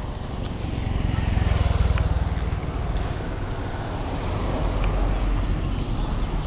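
Road traffic passing close on a wet street: a low rumble of cars going by that swells about a second in and again near the end.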